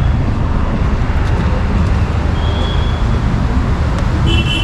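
Steady low rumble of a car driving in city traffic, heard from inside the cabin. A short horn sounds just before the end.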